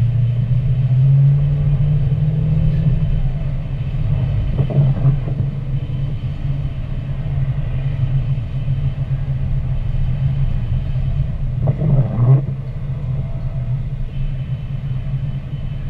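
Car driving on a wet road, heard from inside the cabin: a steady low rumble of engine and tyres, with a brief louder swell about twelve seconds in.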